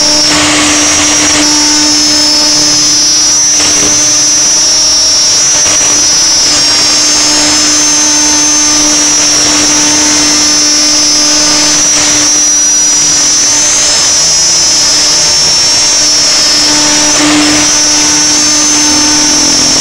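CNC router spindle running with a steady high-pitched whine while its cutter mills through polyamide (nylon), giving a continuous loud cutting noise.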